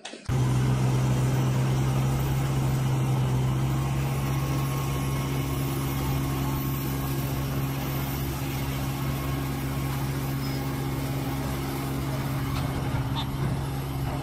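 Heavy diesel engine running at a steady, unchanging speed, a constant low hum that starts abruptly just after the beginning.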